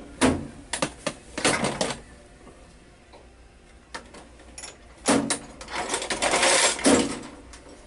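Hand tools and small metal parts being handled and set down on a workbench: a few sharp clacks in the first two seconds, a quiet stretch, then a longer burst of rattling and clattering from about five to seven seconds in.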